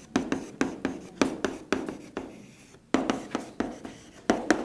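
Writing on a board: a quick run of short taps and strokes, pausing briefly partway through before continuing.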